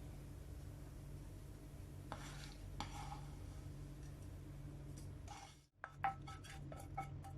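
A metal spoon scraping and clinking against cookware as the fried ginger–chilli tempering is emptied into the tamarind mixture: a few separate scrapes, then after a brief dropout a quick run of clinks near the end, over a low steady hum.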